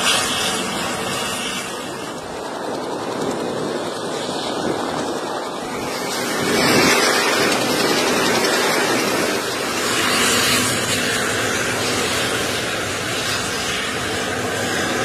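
Helicopter engines and rotor running, a steady rushing noise that grows a little louder about six seconds in.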